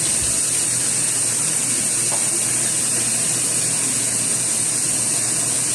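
Water running steadily from a tap, an even rushing hiss in a small room.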